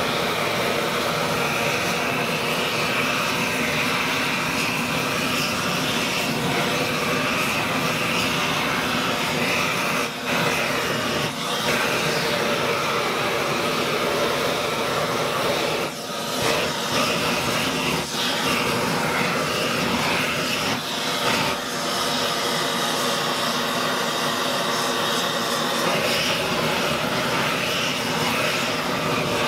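Propane torches burning with a steady rushing flame noise as they heat a copper firebox and fire tubes for silver soldering. The noise dips briefly a few times, about 10, 16 and 18 seconds in.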